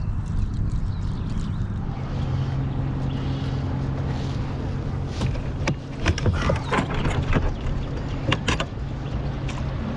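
A hooked largemouth bass splashing at the kayak and being handled aboard, a cluster of sharp knocks and splashes about halfway through, over a steady low hum.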